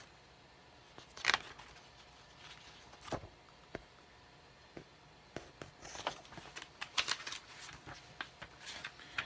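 Pages of a glossy comic book being turned and handled: short papery rustles and flicks, the loudest about a second in, with more scattered throughout.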